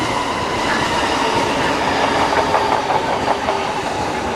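E233-series electric commuter train rolling in past the platform, its wheels clattering over rail joints, with the clatter thickest from about two to three and a half seconds in, under a steady high tone.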